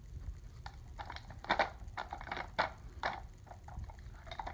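Hollow plastic treat cylinders of a dog puzzle toy knocking and clattering as a dog noses and flips them. The clatters come as a string of short, irregular knocks, the loudest about a second and a half in.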